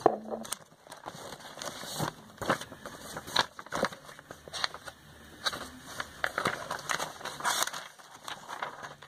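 Paper catalogues and brochures being handled and shuffled: irregular rustling and crinkling.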